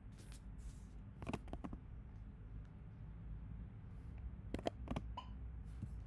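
Quiet background hum of an open call line, with a few faint clicks and brief soft noises.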